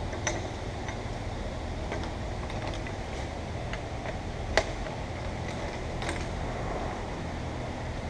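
Scattered light clicks and knocks of metal tool parts being handled, with one sharper knock about halfway through, over a steady background hum.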